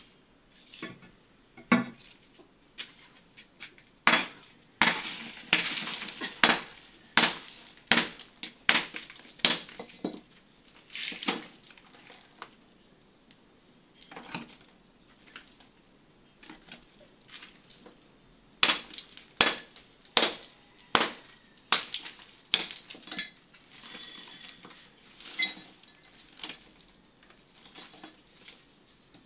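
Broken concrete and hollow-block pieces knocking and clinking against each other and the concrete tomb ledge as they are pulled out of an opened tomb niche by hand. Irregular sharp knocks, in two busy runs a few seconds in and again past the middle, with scattered ones between.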